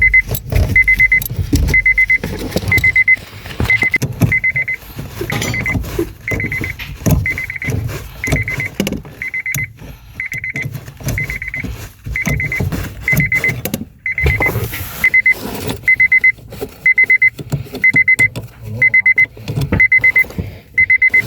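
Electronic beeping, short bursts of a high steady tone repeating about once a second, over clicking and knocking of hand tools working a bolt on the steering rack.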